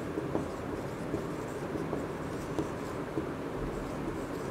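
Marker pen writing on a whiteboard: soft, irregular scratching strokes with small taps of the tip, over a steady low room hum.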